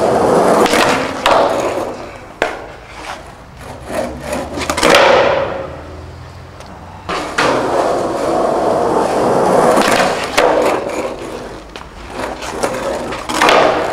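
Skateboard wheels rolling across a skatepark, the rolling noise swelling and fading in long passes. Several sharp knocks come from the board hitting the ground.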